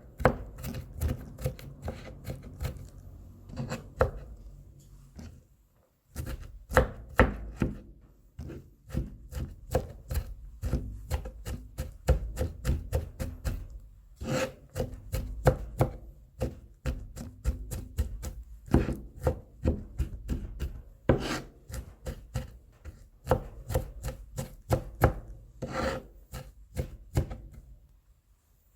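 Kitchen knife mincing garlic cloves on a cutting board, a rapid run of sharp chopping knocks several a second. It pauses briefly about five seconds in, then stops near the end.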